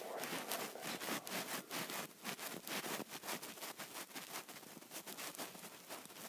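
Quick scratchy scribbling strokes, many a second, from a stylus rubbing back and forth as a box is shaded in.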